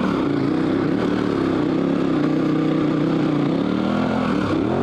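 KTM 1190 Adventure R's V-twin engine pulling steadily in first gear up a steep dirt climb, its pitch dropping and then climbing again near the end.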